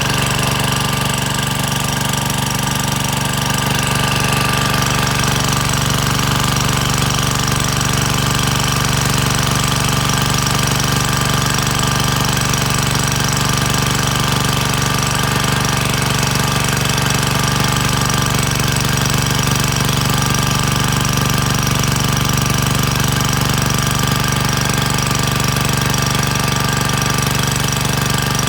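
Engine-driven water pump's small engine running steadily at a constant speed, with a rapid, even chatter.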